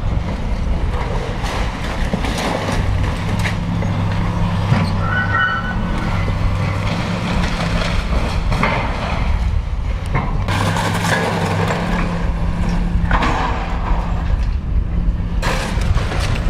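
Komatsu hydraulic excavator's diesel engine running steadily while its boom tears into a building wall, with repeated irregular crashes and crunching of breaking wall, timber and falling debris.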